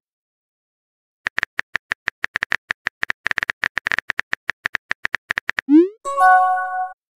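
Rapid, uneven phone-keyboard typing clicks for about four seconds, then a short rising pop and a brief electronic chime: a sent-message sound effect as a new text bubble appears.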